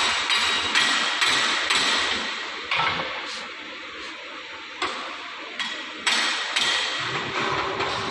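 A hammer tapping the chain grate lightly and steadily, about two strikes a second, to jar the grate parts into place. The strikes stop for a few seconds about three seconds in, with a couple of single knocks, then start again about six seconds in.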